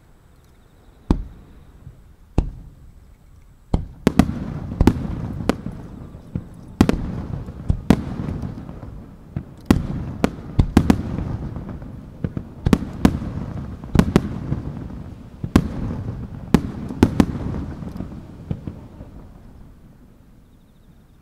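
Aerial firework shells bursting over the sea. Single sharp bangs come about a second in and again near two seconds, then a rapid barrage of bangs follows from about four seconds, each trailed by a low rolling echo. The bangs thin out and fade near the end.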